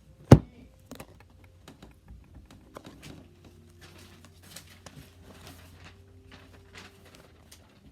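A sharp knock near the start, then faint rustling and light clicks of small things being handled.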